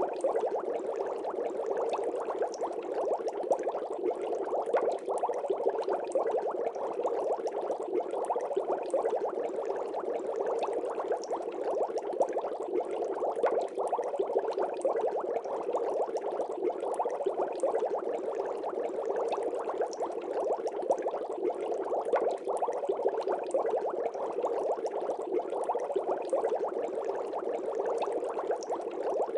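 Steady bubbling water: an aquarium-style underwater ambience of continuous fine bubbling, unchanging throughout.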